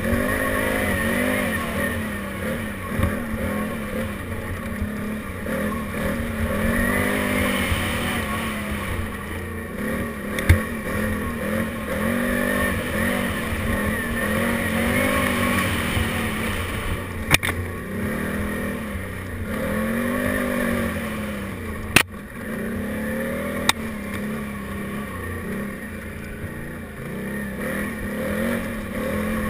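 Can-Am Renegade 800 XXC ATV's V-twin engine running under load, its revs rising and falling over and over as it is ridden. Four sharp knocks cut through, the loudest about two-thirds of the way in.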